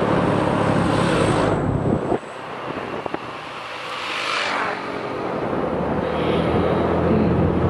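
Motorcycle engine running under way, with wind rushing over the microphone. About two seconds in the engine note drops away sharply, then builds back up over the next few seconds as the throttle is opened again.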